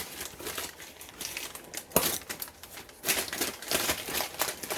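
Packaging crinkling and rustling as a parcel is handled and opened by hand, with a sharp click about two seconds in and denser rustling from about three seconds in.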